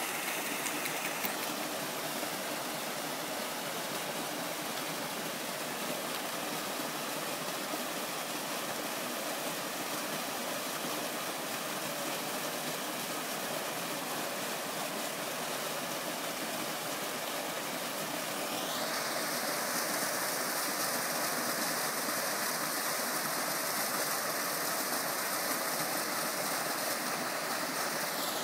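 Waterfall rushing steadily, a continuous hiss of falling water; about two-thirds of the way through it grows brighter and a little louder, then holds.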